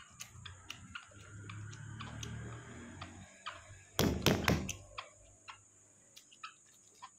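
Balut eggshell being cracked and peeled by fingers, giving small sharp clicks of breaking shell, then a quick run of four or five heavy knocks about four seconds in as the egg is struck on the table to crack it.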